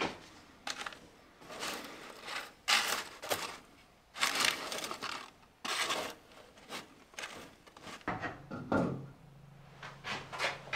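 Baking paper crinkling and metal scraping against the floor of a masonry heater's oven as a tray of granola is handled, in a series of short rustles and scrapes with a few knocks.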